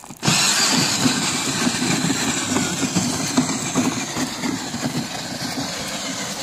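Battery-powered three-wheeled ride-on toy motorcycle driving across grass, its electric motor and gearbox giving a steady whir that starts abruptly just after the opening and eases slightly later on.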